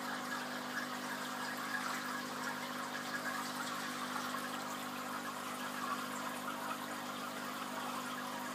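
Aquarium water trickling steadily over a low steady hum.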